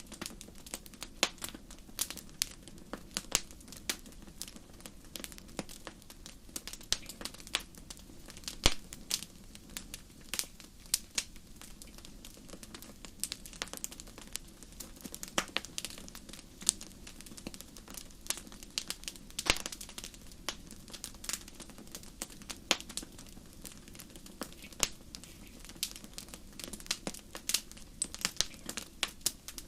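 Wood fire crackling: irregular sharp pops and snaps, several a second and uneven in strength, over a soft steady rush of flame.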